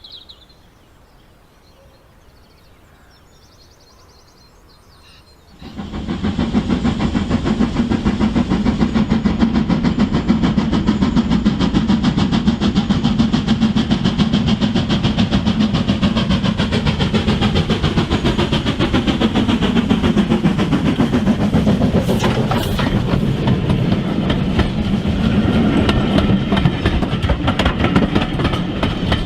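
OO gauge model train running on the layout: a steady motor hum with a fast clatter of wheels over the track, starting suddenly about six seconds in and carrying on loudly, with its pitch sliding for a while partway through.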